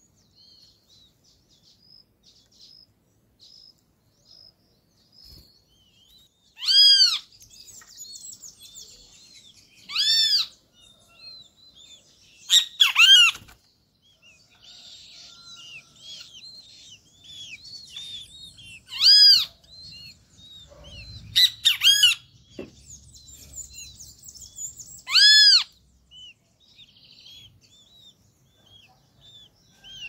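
Great kiskadees calling: loud single arched notes repeated every few seconds, some in quick pairs, with faint high chirping in between.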